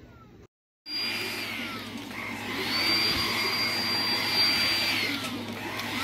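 Kenmore DS4020 cordless stick vacuum's motor running as it is pushed over carpet. It cuts in just under a second in with a steady high whine. The whine rises in pitch about two and a half seconds in, holds, and drops back about five seconds in.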